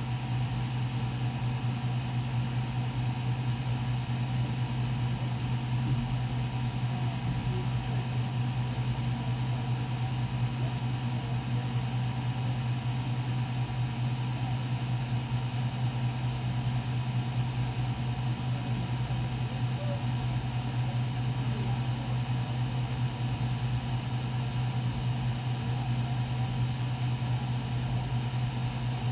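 A steady low hum that stays the same throughout, with no speech or cheering.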